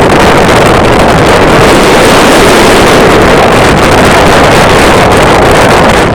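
Loud, steady wind rushing and buffeting against the microphone.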